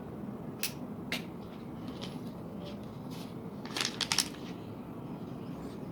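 A few light clicks and taps of small parts being handled, one about half a second in, another a moment later, and a quick cluster about four seconds in, over a steady low hum.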